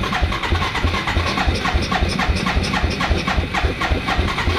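Suzuki ATV engine running at idle, an even rhythmic pulsing, on the old carburetor that is about to be replaced.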